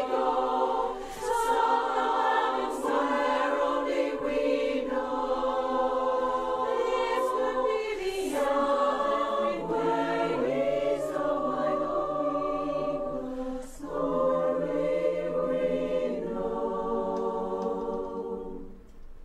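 Women's barbershop chorus singing a cappella in close four-part harmony, holding long chords, with a low bass line joining about halfway through. The singing fades down near the end.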